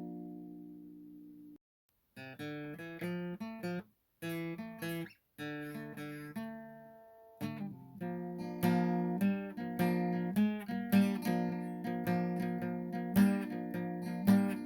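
Acoustic guitar music. A chord rings and fades, the sound cuts out abruptly a few times, then picked notes return and settle into a steady strummed rhythm about halfway through.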